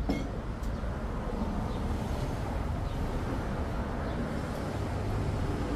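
Steady low background rumble, with a short knock and clink right at the start as a glass bottle is set down on a table, and a fainter click about half a second later.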